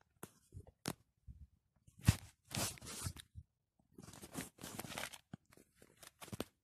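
Handling noise: irregular rustling and scraping of the flight suit's fabric against the phone's microphone as the phone is moved, with a sharp knock about two seconds in.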